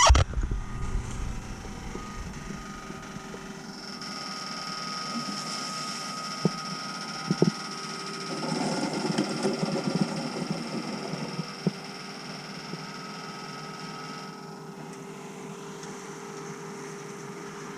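Engine of the truck pulling the delivery trailer running steadily. A steady whine starts about four seconds in and stops near fifteen seconds, with a couple of sharp clicks and a stretch of rushing noise in the middle.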